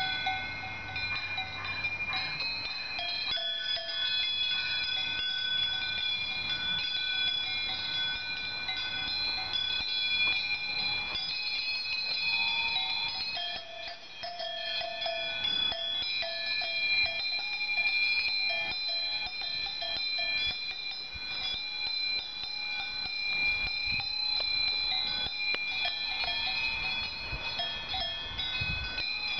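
Cowbells on grazing cows ringing on and off as the cows move: several bells at different pitches clanking over one another.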